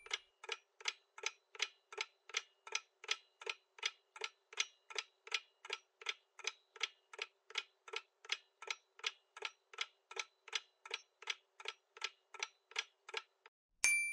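Clock-ticking countdown sound effect: a steady tick about three times a second, stopping shortly before a bell-like ding right at the end.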